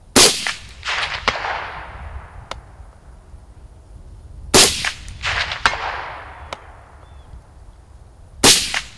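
Three suppressed rifle shots from a Springfield M1A in .308 Winchester fitted with an AAC SDN-6 suppressor, about four seconds apart, each followed by echo. About a second after each shot there is a faint sharp ping of the bullet hitting a steel target 300 yards out.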